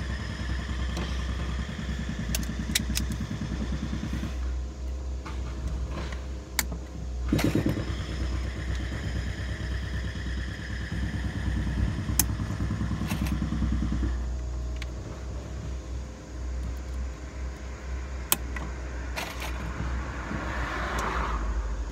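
Hand tools clicking and clinking at irrigation fittings, including tongue-and-groove pliers, in scattered sharp knocks. A steady engine-like hum runs under them and swells twice.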